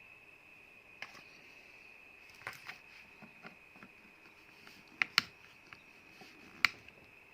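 A handful of short, sharp clicks at irregular spacing, the loudest a close pair about five seconds in and another a little after six and a half seconds. A steady faint high-pitched whine runs underneath.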